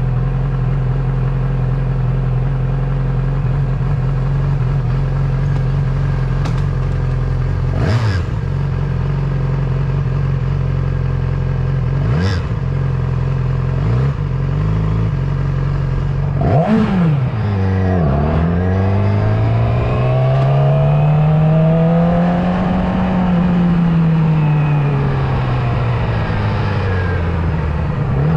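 Motorcycle engine running at a steady speed, broken by two short clicks about a third of the way in and a few seconds later. In the last ten seconds its pitch sweeps up and back down as the bike speeds up and slows again.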